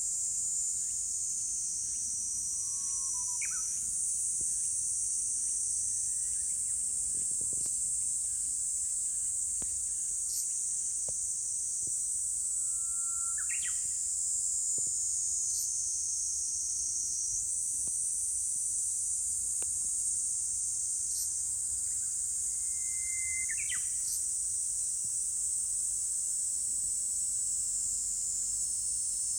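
Dense, steady high-pitched chorus of summer insects, shrilling without a break. Three short bird calls cut in about ten seconds apart, each a brief held whistle ending in a quick upward sweep.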